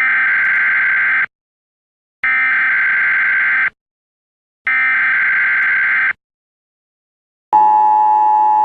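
Emergency Alert System alarm: three identical buzzy digital data bursts, each about a second and a half long with short silences between, followed near the end by the steady two-tone EAS attention signal starting up.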